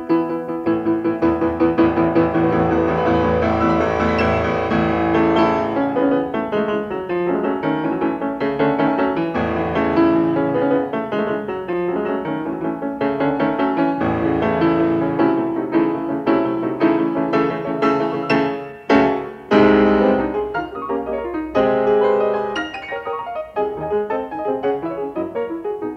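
Piano music, many notes played in close succession, with a brief drop in level about three quarters of the way through.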